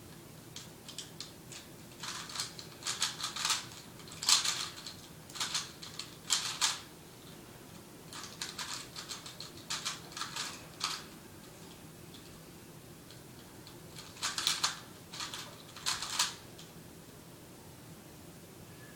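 A 3x3 Rubik's cube being turned by hand in a blindfolded solve: bursts of rapid plastic clicking as the layers are twisted through memorized algorithms, with short pauses between the bursts.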